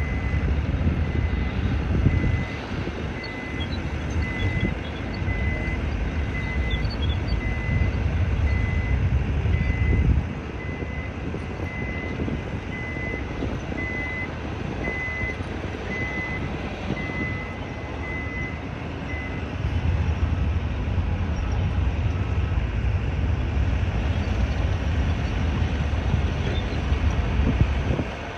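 Vehicle reversing alarm beeping steadily about once a second, stopping about two-thirds of the way through, over a low heavy-engine rumble that swells and eases.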